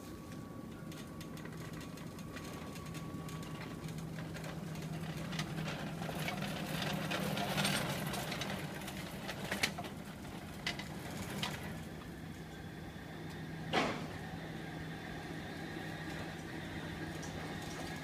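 Electric drive of a home-built powered greenhouse cart humming steadily as the cart runs along the pipe rails. The hum grows louder for a few seconds, then a few sharp clicks and knocks follow, the loudest near the end.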